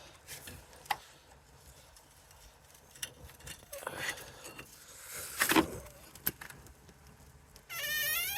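Intermittent metal clicks, knocks and scraping of a screwdriver working at a brake caliper while the caliper piston is pushed back. Near the end comes a brief wavering, high-pitched squeak.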